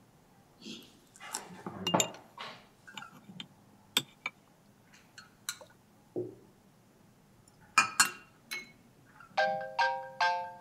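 Spoons clinking against porcelain bowls and dishes at a breakfast table, with scattered knocks and scrapes of a chair being pulled in. Near the end a mobile phone ringtone starts, a quick repeating melody of bright notes.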